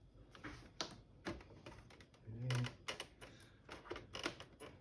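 Sharp plastic clicks and creaks from the Acer KA240HQ monitor's tight front bezel being pried at, an irregular run of clicks, with a short hum from a person about halfway through.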